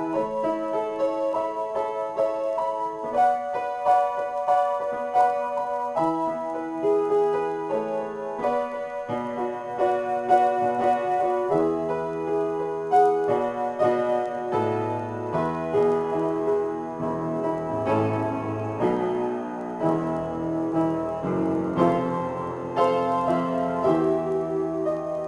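Upright piano played in a free improvisation: a run of chords and melody notes that change every second or so, with deeper bass notes coming in from about halfway through.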